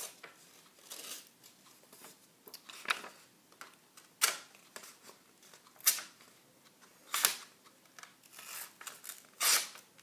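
Swiss Army knife blade slicing into a sheet of paper in about five separate short strokes, each a quick rasping tear, with light paper handling in between; the blade is being tested for sharpness.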